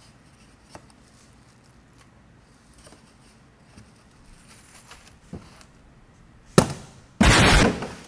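Empty cardboard box tossed onto a concrete floor: a sharp thud as it lands, then under a second of loud scraping as it skids to a stop. Before that, faint rustles and clicks of packaging being handled.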